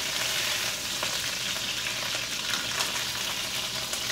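Chicken thighs frying in olive oil in a stainless steel pot, a steady sizzle.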